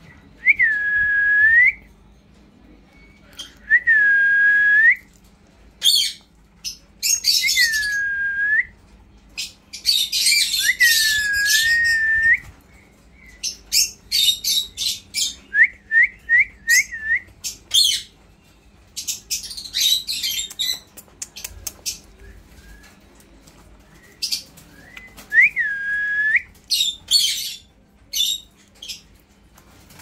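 Alexandrine parakeet whistling and chattering. Clear whistled notes about a second long, dipping and rising at the ends, come several times. A quick run of four short rising chirps comes around the middle, and bursts of harsh high-pitched chatter fall between the whistles.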